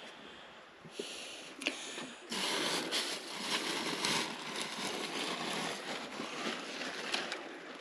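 Plastic bags rustling and crinkling as they are handled, a dense crackly noise that starts about two seconds in and carries on irregularly.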